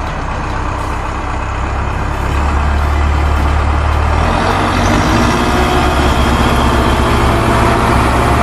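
A heavy engine running steadily with a deep low rumble, growing louder over the first few seconds, then cutting off abruptly.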